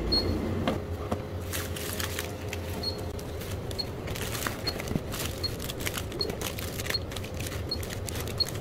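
Crinkly plastic snack packets and boxes being handled and set down on a checkout counter, with scattered small knocks and rustles. Short high electronic beeps repeat about once a second throughout.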